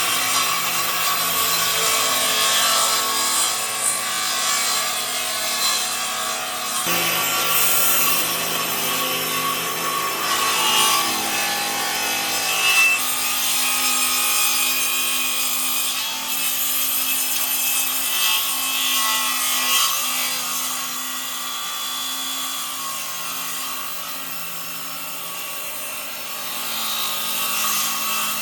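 Power tool working wood: a steady grinding hiss with a held whine that shifts pitch a couple of times as the load changes.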